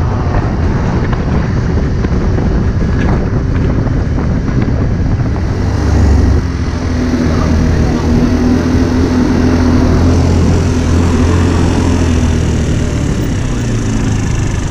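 AJS Fire Fox 50cc scooter riding in traffic: wind rushing over the microphone over the small engine. About six seconds in, the wind drops and the engine settles into a steady low running note as the scooter slows in a queue.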